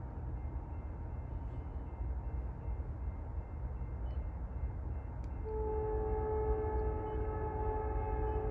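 Low rumble of an approaching CSX freight train. About five and a half seconds in, the lead diesel locomotive's air horn starts sounding a steady chord of several notes, louder than the rumble, and holds it.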